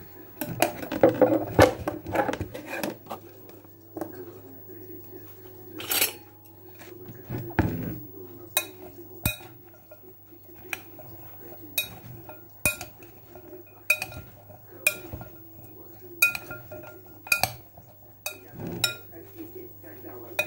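A metal utensil tossing chopped salad vegetables in a glass bowl, clinking against the glass. The clinks come in a quick cluster at first, then singly about once a second.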